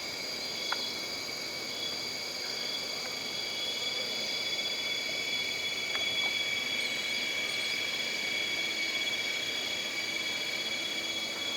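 Jungle ambience: a chorus of insects droning steadily in several high, unchanging pitches, with faint scattered bird chirps over it.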